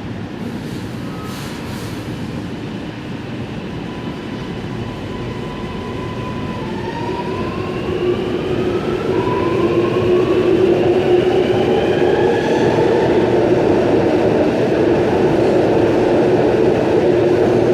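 Sydney Metro Alstom Metropolis train pulling away from the platform. Its traction motors give a whine that rises in pitch in several overlapping steps as it speeds up, and the running noise grows louder from about halfway through.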